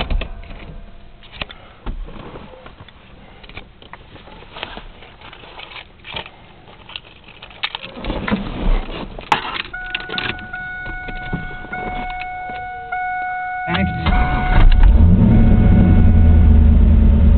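Small clicks and rustles, then a steady electronic warning chime inside the car for about four seconds. Near the end the starter cranks briefly, and the 1997 Camaro Z28's cammed LT1 5.7-litre V8 fires and settles into a fast, even idle around 1,200 rpm, heard from the cabin.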